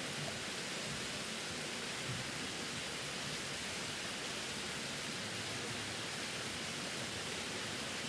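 Small waterfall splashing down a rock face: a steady, even hiss of falling water that does not change.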